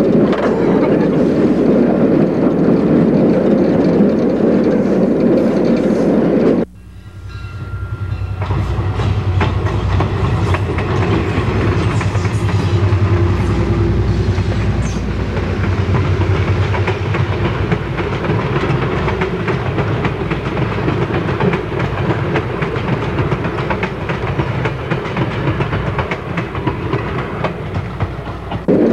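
Running noise inside the cab of a Pennsylvania Railroad E8 diesel locomotive on the move. It cuts off suddenly about seven seconds in. A lineside sound of a pair of PRR E8 units hauling coaches across a bridge then builds within a couple of seconds: the diesel engines drone low and the wheels clack over the rail joints.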